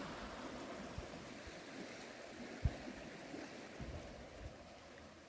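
Water rushing and churning out of the aqueduct's gate outlet, a steady wash of noise, with a few soft low thumps.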